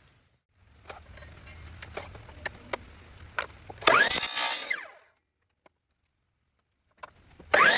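Power saw cutting pen blanks: the motor runs with a low hum and a few clicks, then two short, loud cuts, about four seconds in and near the end, the pitch dropping as the blade bites into the blank.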